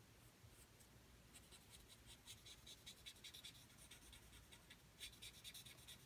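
A paper blending stump rubbing graphite on drawing paper in quick short strokes, several a second. The strokes are faint and scratchy, starting about a second and a half in and thickening near the end.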